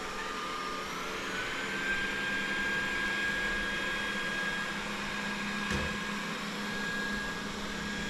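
Xiaomi Mi Robot Vacuum Mop 2 Ultra robot vacuum running, its suction fan whine rising in pitch a second or two in as it switches to Strong suction, then holding steady.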